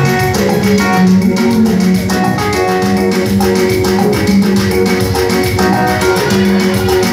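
Upbeat dance music led by guitars over a bass guitar and a fast, steady beat.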